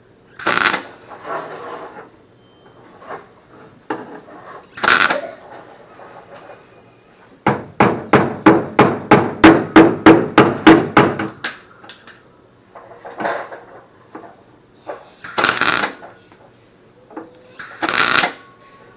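Hammer striking the steel patch panel of a Mercedes 280SL fender, knocking it into place: a quick run of about eighteen even taps over some four seconds midway. Several louder, half-second bursts of harsh noise come before and after the taps.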